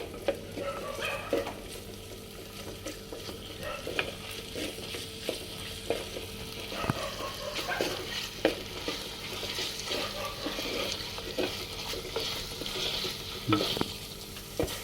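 Onions, green chillies and ginger-garlic paste sizzling in hot oil in a clay pot while being stirred, the spoon scraping and clicking against the pot.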